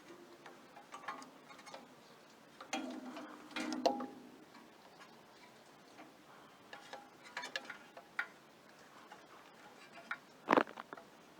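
Scattered small clicks and light taps of hands working around a small engine, routing the new ignition coil's wires back through their path, with a sharper knock near the end.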